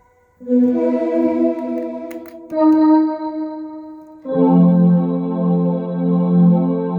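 Korg X3 workstation synthesizer playing held chords on a factory sound: a chord begins about half a second in, changes at about two and a half seconds, and a fuller, lower chord comes in at about four seconds and is held.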